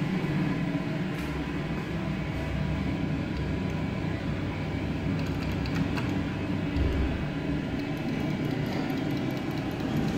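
Steady low rumble and hum inside a Schindler hydraulic elevator cab, with a single sharp click about six seconds in.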